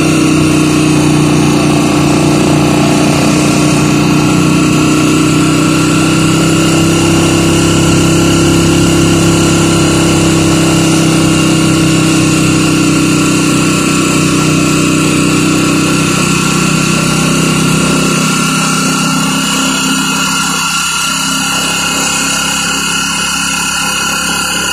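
Motorcycle engine of a tricycle (motorcycle with sidecar) running steadily while riding, over a steady hiss of wind and tyres on the wet road. About three-quarters of the way through, the engine's low note fades and the sound gets slightly quieter.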